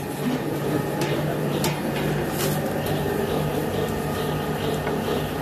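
Steady rushing noise with a low hum from a large pot steaming hard over its fire, with a few faint clicks.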